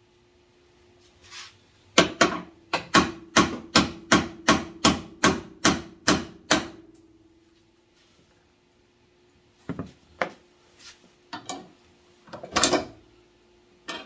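Hand hammer blows, about a dozen in quick, even succession, then a few scattered knocks near the end, with a steady low hum underneath.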